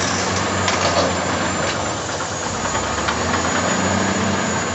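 Large wheel loader's diesel engine running steadily as the machine pushes dirt.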